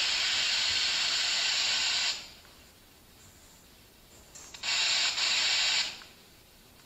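Loud, steady hiss of electronic static that cuts off suddenly about two seconds in, then comes back for just over a second near the end.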